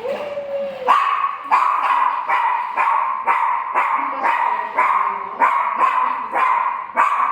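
A dog barking over and over, about two barks a second, starting about a second in.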